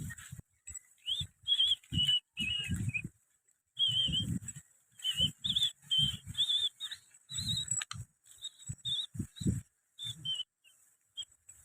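An animal's short, high-pitched squeaky calls, repeated many times in quick succession, over low thumps.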